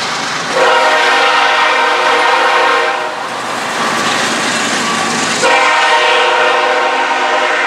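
Diesel locomotive horn sounding two long blasts, the first from about half a second in to three seconds, the second starting about five and a half seconds in. Between the blasts, empty military flatcars roll past on the rails.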